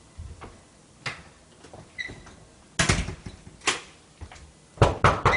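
Knocking and banging on a door: single sharp strikes a second or so apart, then three quick, louder bangs near the end.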